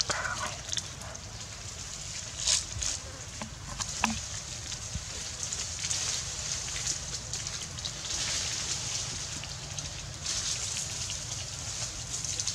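Outdoor ambience: a steady high hiss with scattered short rustles and crackles of dry leaves as monkeys shift about on leaf-strewn rocks.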